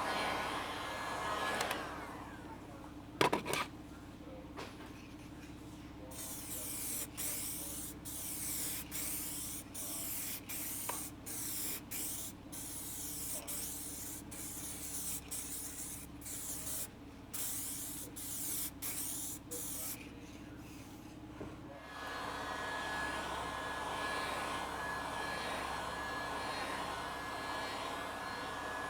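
Headlight sealant being sprayed onto a sanded plastic headlight lens: a sharp knock early on, then many short hissing spray passes with brief gaps, and a longer unbroken hiss during the last several seconds.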